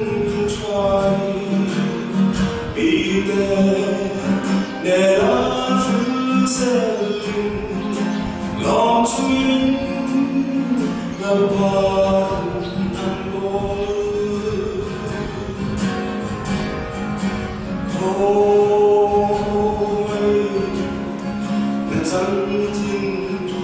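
A man singing a slow song with long held notes, accompanying himself on an acoustic guitar.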